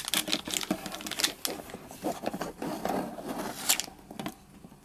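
Wrapped Pog booster packs rustling and crinkling as they are handled and pushed around in a pile, a quick run of crackles and scrapes that dies away near the end.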